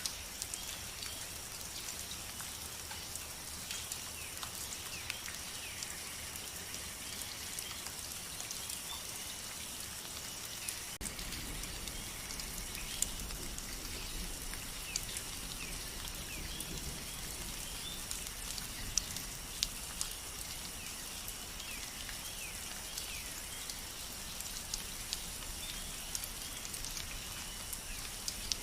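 Steady rain with individual drops ticking close by, and faint short chirps in the background.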